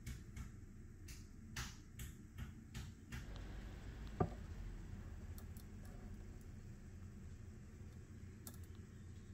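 Handling noise on a bench: a series of light clicks and taps from the screwdriver and the plastic subwoofer enclosure, then one sharp knock about four seconds in as the subwoofer driver is lifted out of the enclosure, with a few faint ticks after.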